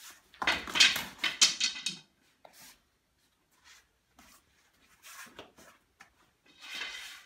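A person thrown down onto interlocking foam floor mats in a martial arts takedown: a burst of thuds and scuffling, loudest in two hits about a second in, followed by quieter scuffs of feet and bodies on the mats.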